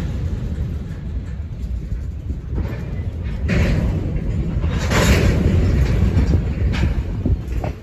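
CN train rolling past: a steady heavy low rumble, with louder rushes of noise coming and going every second or two.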